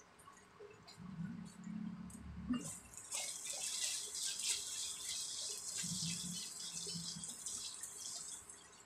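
Red garlic sauce sizzling and bubbling in a nonstick wok, with a crackling hiss that grows louder about three seconds in as a wooden spatula scrapes and stirs it through the pan.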